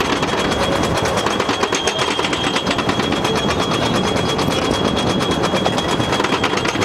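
Wooden roller coaster train climbing the chain lift hill: rapid, steady clacking of the lift chain and anti-rollback dogs, with a thin steady high whine.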